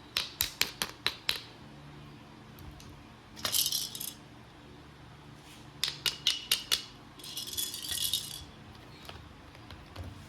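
A toy being rattled: a run of quick sharp clicks at the start, a short shaken burst, then another run of clicks and a longer shaken burst about three quarters of the way through.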